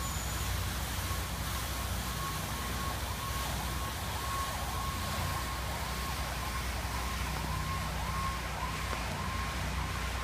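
Fountain water splashing steadily over a low rumble, with a faint distant siren holding one pitch, then wavering up and down over and over in the second half.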